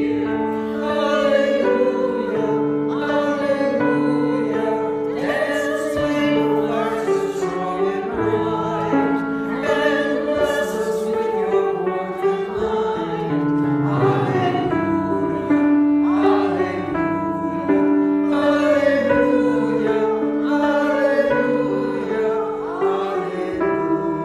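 A small group of voices singing a song together, several voices at once on long held notes that move from phrase to phrase.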